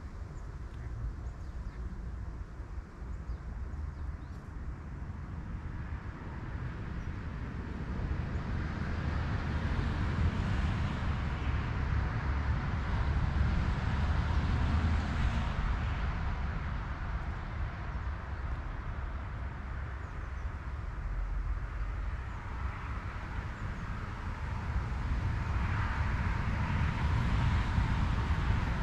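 Distant road traffic heard across open water: a low rumble with tyre hiss. It swells as vehicles pass, about a third of the way in, fades, then builds again near the end.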